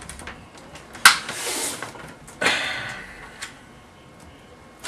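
Hard plastic laptop casing being pried apart: a sharp snap about a second in, then scraping, a second crackling pull a little later that fades off, and a small click. The plastic panel above the CD drive is stuck and resisting being separated.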